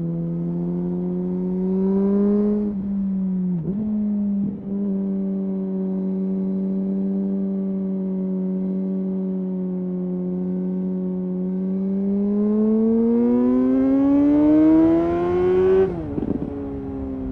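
A 2009 Suzuki GSR 600's inline-four engine runs through a Yoshimura dual exhaust with the dB killers removed while the bike is ridden. The engine holds a steady pitch, with two brief dips a few seconds in. It then rises in pitch for several seconds as the bike accelerates, and drops sharply near the end.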